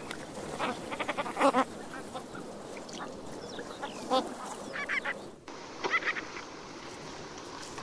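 Ruff (Calidris pugnax) giving short calls in several quick clusters, with a brief dropout about five and a half seconds in.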